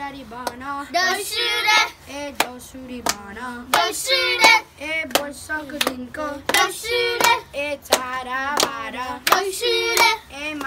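Children singing a Nepali Deusi song together, with sharp hand claps through the singing.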